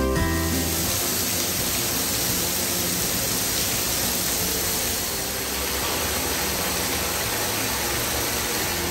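Hot spring water pouring from a spout into a half-filled bathtub: a steady splashing rush.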